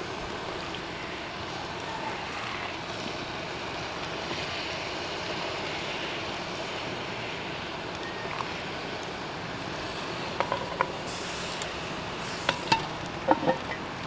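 Soup being stirred with a plastic spoon in a foil-lined cast-iron Dutch oven over campfire coals, against a steady hiss. A few sharp clicks and knocks come near the end.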